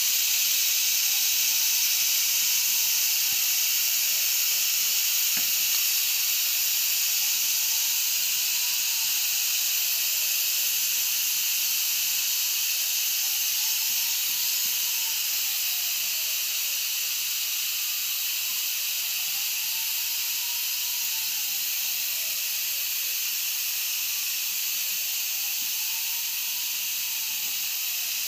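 Pressure cooker venting steam through a bolt used in place of its missing regulator weight: a steady high hiss that slowly grows quieter. A faint tone rises and falls about every six seconds.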